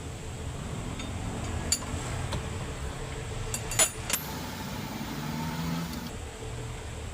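Steady low mechanical running, with a few sharp metallic clinks, the loudest about four seconds in.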